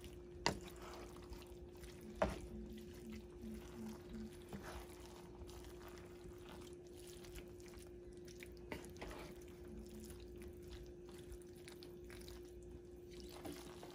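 Wooden spoon stirring and pressing shrimp into a wet pan of rice jambalaya: faint squishing and scraping, with two sharp knocks of the spoon on the pan near the start and a few softer ones later, over a steady low hum.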